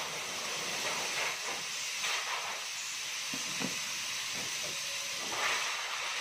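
A steady hiss, with a few faint, brief knocks and rustles.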